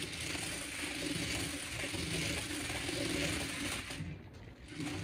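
Toy RC stunt car's small electric drive motors and gearboxes running steadily as its mecanum roller wheels spin, in a mode with three wheels driven and one held still; the running stops about four seconds in.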